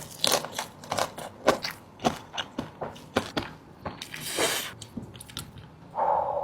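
Close-miked chewing of crunchy food (nasi padang with dried beef and crispy potato chips), with many sharp crunches and bites. About four seconds in there is a longer hissing sound, and near the end a short muffled noise.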